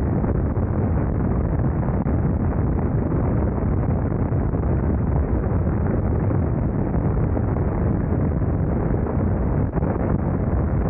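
Steady wind rush on the microphone over the running BMW R nineT Scrambler's flat-twin boxer engine, riding at road speed.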